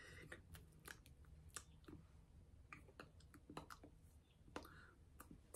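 Near silence broken by faint, irregular clicks and taps of hands meeting and brushing together during sign language, with a few soft breathy mouth sounds.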